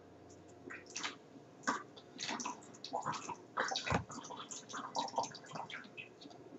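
Vinegar poured from a measuring cup into a disposable plastic water bottle: a faint, irregular trickle and splashing of liquid running into the bottle.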